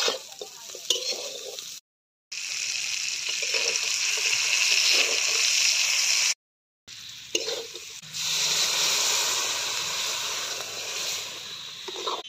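Food sizzling in oil in a karai (wok), stirred and scraped with a metal spatula: moringa drumstick pieces, then tomatoes, then lentil dal. The steady sizzle breaks off suddenly twice, with a few sharp scrapes of the spatula against the pan.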